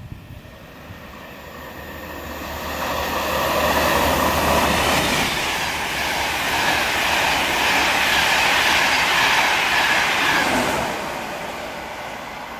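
LNER express train passing at speed: a rush of wheel and air noise that builds over about three seconds, stays loud for some seven seconds, then dies away near the end.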